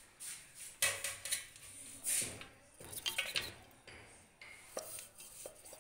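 Stainless-steel mixer-grinder jar and steel plate clinking and knocking together as ground dry fruit is tipped and tapped out of the jar, a few sharp metallic knocks with soft scraping between them.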